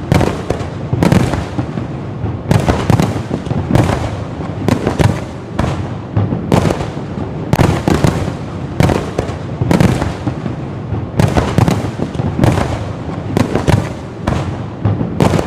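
Fireworks going off in a rapid, irregular series of bangs, about two a second, each with a short rumbling tail.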